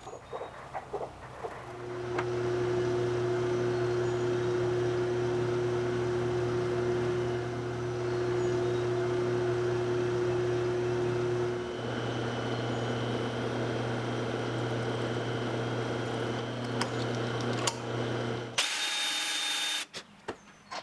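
A power tool motor starts and runs steadily for about sixteen seconds with a low hum, plausibly cutting the mortise in a small aluminum piece; its tone shifts about ten seconds in. Near the end comes a brief, louder harsh noise.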